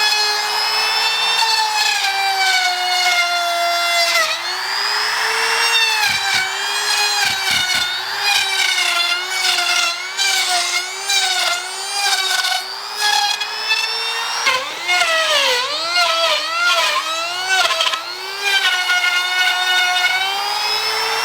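High-speed electric router cutting wood, hollowing out a seat blank. Its motor whine sags in pitch each time the bit bites into the wood and climbs back as it frees, with the most frequent swings between about 14 and 18 seconds in.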